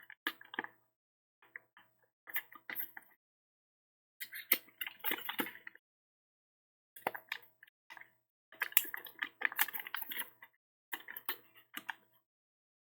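Sheet of origami paper being folded and creased by hand, crinkling and rustling in repeated short bursts with quiet gaps between.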